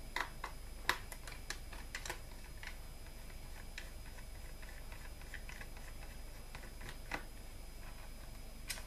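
Small irregular clicks and ticks of a screwdriver turning a screw out of a laptop's optical-drive bracket, thickest in the first two seconds and sparser after, with a slightly louder click near the end.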